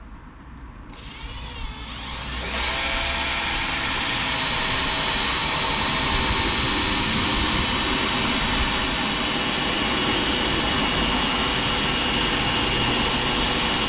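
Electric drill with a 5 mm bit boring into the narrowboat's steel bow panel. The motor spins up about a second in, then from about two and a half seconds it runs with a loud, steady whine as the bit grinds at the steel, and it stops just before the end. The bit is cutting slowly; the owner judges the old bit not very good and thinks a smaller pilot bit would have been better.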